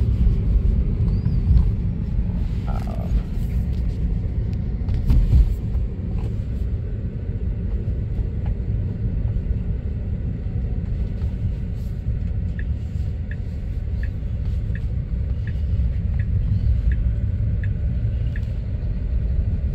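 Steady low road and tyre rumble inside the cabin of a moving 2023 Tesla electric car. A couple of brief knocks come in the first few seconds, and a light, even ticking, about three ticks every two seconds, runs through the second half.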